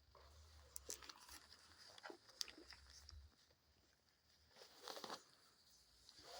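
Near silence with faint rustling and light scratchy clicks: a few scattered ticks in the first three seconds and a short burst of rustling about five seconds in.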